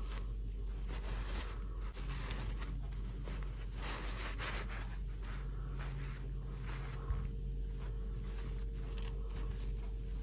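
Fabric rustling and scraping against a plastic fashion doll as its dress is pulled off by hand, in irregular bursts over a steady low hum.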